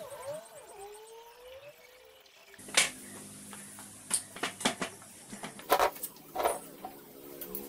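Faint chirping, then a series of sharp knocks and clatter as the wooden table top and cover of a treadle sewing machine are handled and set in place, over a steady hum.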